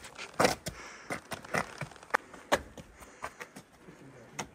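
Footsteps of hiking boots on a gritty rock-and-gravel trail: a string of short, irregular steps, about two to three a second.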